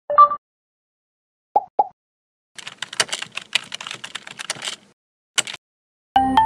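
Computer keyboard typing: a quick run of key clicks for about two seconds, with a few short isolated clicks before it and one brief burst after. Music starts just at the end.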